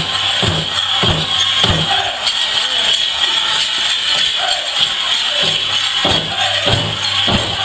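Powwow drum beaten in a steady beat, about two strokes a second, under the constant jingling of the dancers' leg bells. The drumbeat thins out in the middle and comes back strongly near the end.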